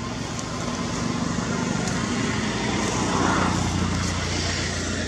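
Motor traffic: a steady engine hum with a vehicle passing, loudest about three seconds in and then fading.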